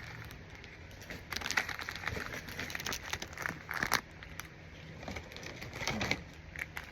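Plastic snack wrappers crinkling and crackling as individually wrapped rice cake cookies are handled, in irregular bursts of sharp crackles, busiest from about a second in to the middle and again near the end.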